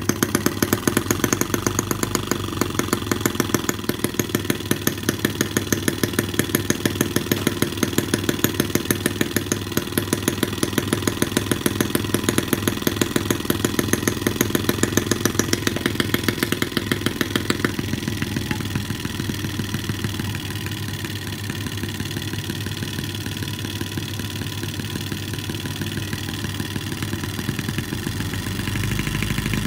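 Miniature M12/ET5 four-stroke model gas engine running steadily, its exhaust popping in a rapid, even beat. About two-thirds of the way through the exhaust note turns softer and duller as a slip-on 3D-printed carbon-PLA muffler with a foam insert goes over the exhaust.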